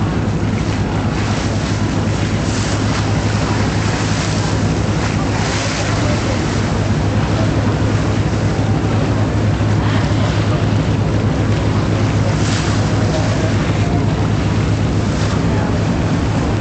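A boat's engine running with a steady low drone, over the rush of water along the hull and wind on the microphone, with a few brief louder swishes of water.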